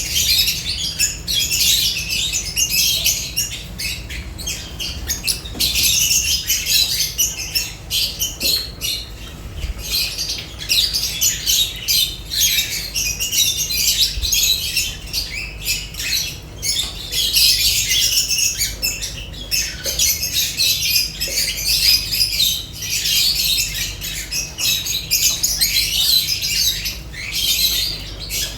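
Several lovebirds calling together: a dense, unbroken stream of rapid, high-pitched chirps and squawks, thinning briefly a couple of times.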